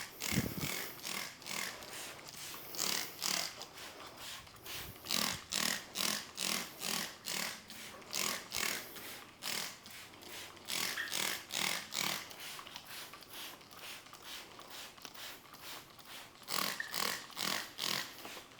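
Hand trigger spray bottle spritzing a waterless-wash pre-wash onto a car's paint: a long run of short, sharp sprays, two to three a second, with a few brief pauses.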